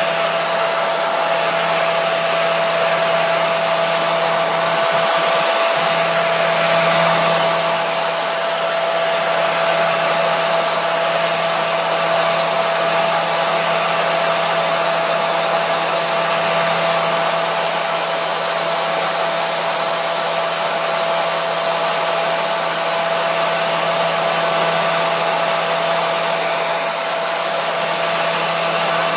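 Hair dryer running steadily: an even rush of air with a constant whine from its motor and a low hum underneath, played continuously as a soothing noise for a baby's sleep.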